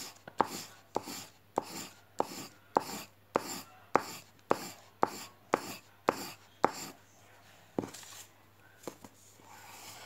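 Red pencil scribbling quickly back and forth on paper, colouring in: regular strokes just under two a second, each starting with a sharp tap. The strokes stop about seven seconds in, with two single strokes after.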